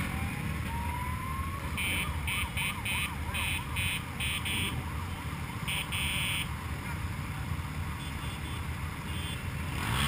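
Emergency-vehicle siren: a rising wail, then a fast up-and-down yelp, mixed with short bursts of high electronic beeps that stop about halfway through. Motorcycle engines idle in a low, steady rumble underneath.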